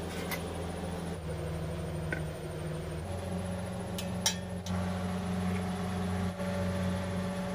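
Light clinks of steel kitchenware, a plate lifted from a steel dish rack and a serving spoon against a steel pot, over a steady low hum. The sharpest clink comes about four seconds in.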